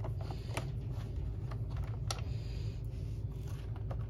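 Hand screwdriver turning out a screw from a Hoover vacuum's plastic base plate: scattered light clicks and ticks of the screw and plastic, over a low steady hum.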